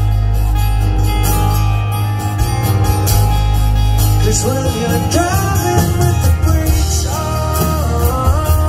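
Live rock band playing through a large outdoor PA, heard from the crowd: guitars, keyboards, bass and drums, with a steady heavy bass. A lead vocal comes in about halfway through.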